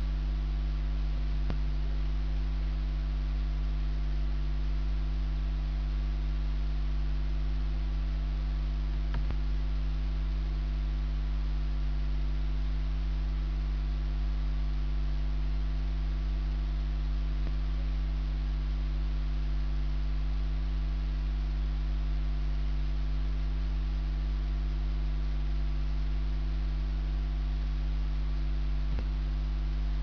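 Steady electrical mains hum with several overtones, picked up on a computer's audio recording input, with a few faint clicks spread through it.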